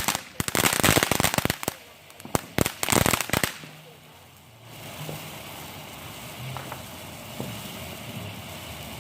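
Fireworks going off: a rapid string of sharp crackling pops for about the first second and a half, then another burst of pops around three seconds in, after which only a quieter steady background remains.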